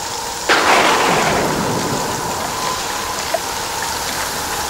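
Heavy rain falling steadily, with a sudden thunderclap about half a second in that rumbles away over the next second or two.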